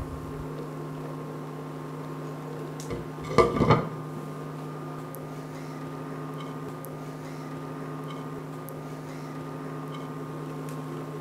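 A glass pot lid clatters onto a metal pot of hot water about three and a half seconds in, over a steady electrical hum from an induction cooktop.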